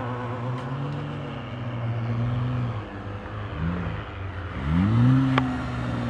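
2012 Jeep Wrangler Rubicon's Pentastar V6 with a Magnaflow exhaust, revving as it drives through soft sand on oversized mud tyres. The revs dip about three seconds in, then rise sharply and are loudest about five seconds in, with a brief click just after.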